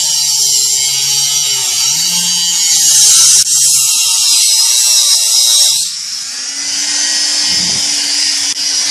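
Dremel rotary tool with a cut-off disc grinding into a metal tin can, a loud, high-pitched hissing grind over the motor's hum. About six seconds in the grinding thins and a steadier motor whine takes over.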